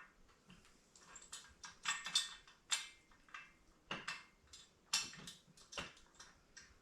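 Irregular light metallic clinks and taps of hand tools and a steel bolt being handled on a steel jack frame, about a dozen sharp ticks with the loudest near the middle.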